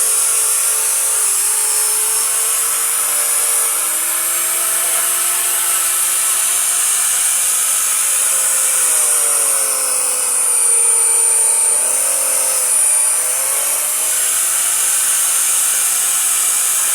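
A small electric power tool running continuously with a high hiss, its motor pitch dipping and recovering a few times, most deeply about nine to ten seconds in and again near twelve seconds.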